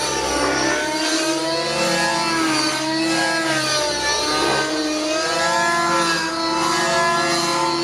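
O.S. MAX-55HZ two-stroke glow engine of a JR Vibe 50 nitro RC helicopter running at high revs. Its pitch keeps rising and falling as the rotor load changes through 3D manoeuvres.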